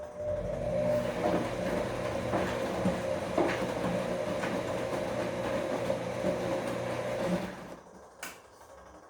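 Bosch washing machine's motor turning the drum during a wash cycle: a steady motor whine with the load tumbling, running for about seven and a half seconds and then stopping. A short click follows near the end.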